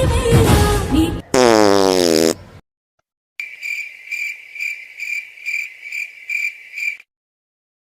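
The tail of a song, then a loud buzzy tone of about a second falling in pitch, then a short gap and crickets chirping in even pulses about twice a second for about three and a half seconds, cutting off suddenly: a comedy crickets sound effect.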